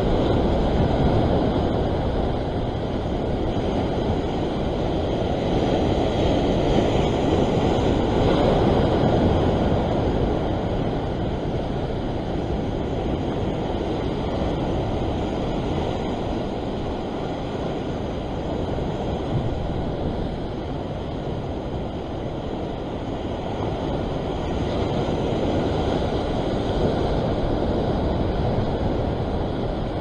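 Ocean swell breaking and washing over the rock ledge below, a steady churning rush of surf that surges louder and eases off as the sets roll in.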